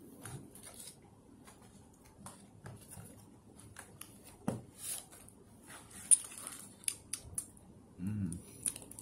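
Cardboard burger box being opened and a paper-wrapped burger lifted out: scattered rustles, crinkles and sharp clicks of card and wrapping paper, the sharpest about six seconds in.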